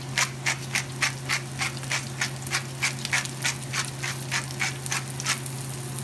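Pepper mill grinding peppercorns over the pan: a regular run of short, crunchy grinding strokes, about four a second, stopping near the end, over a low steady hum.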